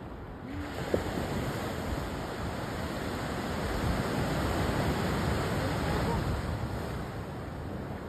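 Ocean surf: a wave swells in and washes up along the shore, building over a few seconds and easing off near the end.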